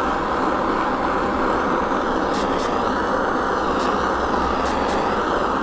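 Handheld gas soldering torch burning with a steady hiss as its flame heats a fluxed silver ring.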